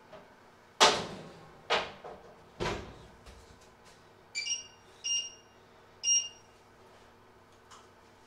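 Three sharp clanks in quick succession, each ringing briefly, then three short electronic beeps from the cooktop's controls as they are pressed.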